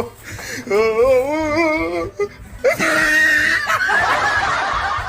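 Laughter: a long, wavering laugh about a second in, then denser laughter from about three seconds in.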